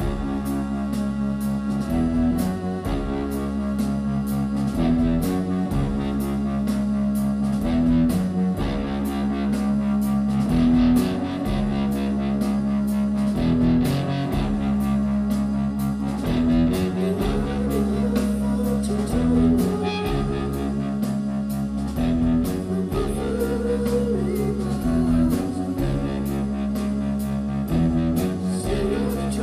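Live rock band playing a slow, heavy instrumental passage: an electric guitar riff over long held bass notes, with drums and regular cymbal strokes.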